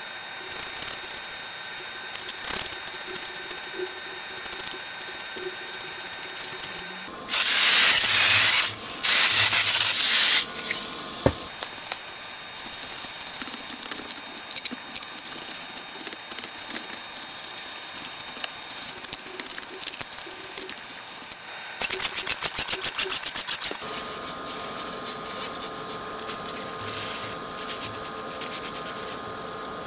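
Aerosol can spraying alcohol cleaner onto an amplifier's circuit boards to rinse off foam cleaner, in long hissing bursts: two close together about seven seconds in and another about 22 seconds in. Between them comes the short, scratchy sound of a brush scrubbing the board.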